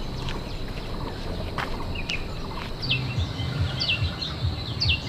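Small bird calling: a few short chirps, then a sharply falling call repeated about once a second, over a steady outdoor background hum.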